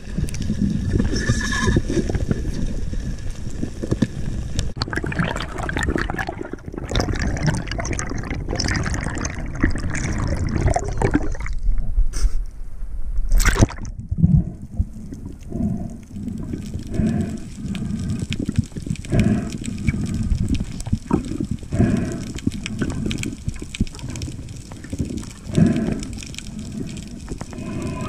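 Underwater water noise and bubbling through a diving camera as a speargun diver swims, with a sharp crack about halfway through as the speargun fires into a fish. After it come irregular low knocks and water movement while the speared fish is on the line.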